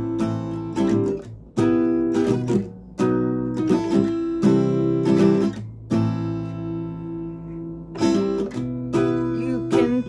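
Acoustic guitar strummed in a rhythmic chord pattern as a song intro, with no voice. About six seconds in, one chord is left to ring and fade for about two seconds before the strumming picks up again.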